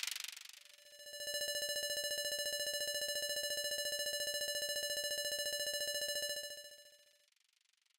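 Electronic sound effect of a channel outro animation: a clattering noise dies away, then about a second in a single steady, high beep-like tone with a rapid flutter sets in and holds, fading out near the end.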